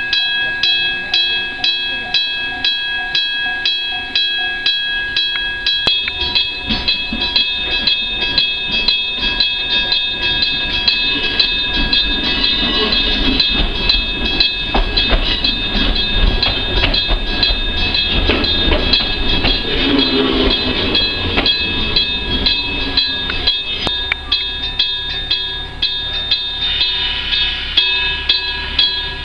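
Japanese level-crossing bell ringing in quick, even strikes, an old-style crossing bell. Under it, a railcar runs into the station, and its running sound swells in the middle as it passes and slows.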